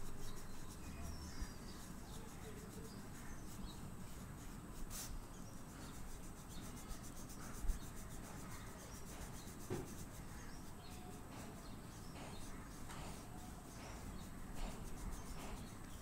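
Oil pastel rubbed back and forth on paper, a dry scratchy scraping in many short repeated strokes as an area is filled in with colour.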